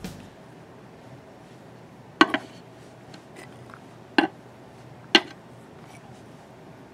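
Wooden Gobblet game pieces set down on the wooden game board: three sharp wooden clacks, about two, four and five seconds in, with a few fainter taps between.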